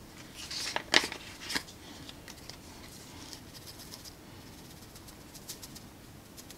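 A spice jar being handled and dried oregano shaken out into a palm: a quick cluster of sharp clicks and rustles about a second in, then faint scattered ticks and rustling.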